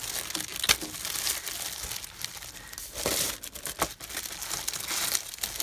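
Clear plastic packaging bag crinkling and crackling as hands pull at it to get it open, with a few sharper crackles.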